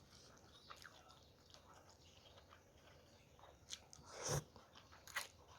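Close-miked mouth sounds of a person eating Thai suki in broth: quiet chewing with small scattered clicks. About four seconds in, a louder mouth sound builds for half a second, and there is another sharp click just after five seconds.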